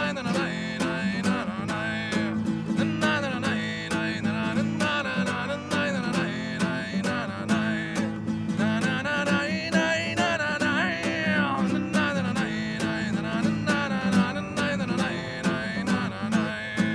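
A man singing while strumming a nylon-string classical guitar in a steady rhythm.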